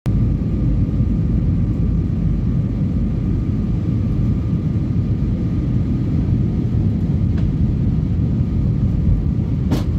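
Steady low roar of an airliner's jet engines and rushing air, heard inside the passenger cabin while the plane descends on approach to land, with a faint steady hum underneath. A brief click shortly before the end.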